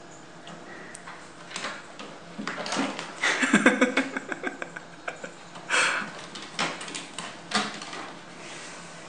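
A cat rubbing, pawing and rolling against a carpeted scratching post with a sisal-wrapped pole. Irregular bursts of scraping and rustling come with light knocks, busiest a little after three seconds in, where a quick run of scratching strokes is heard.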